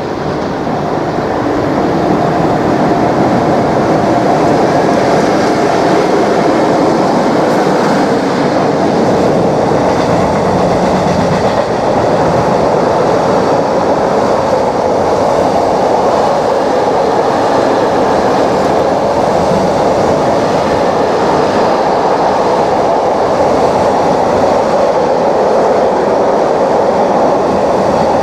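Class 92 electric locomotive hauling an intermodal container freight train past at speed. The sound builds over the first couple of seconds as the locomotive nears and passes, then holds as a steady, loud rumble of the container wagons' wheels running on the rails.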